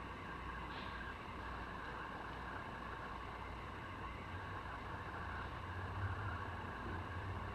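Room tone: a steady low hum with a faint hiss, with no distinct event.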